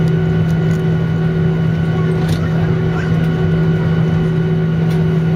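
Steady cabin noise of a jet airliner taxiing, with a constant low hum and even rushing noise from the engines and cabin air.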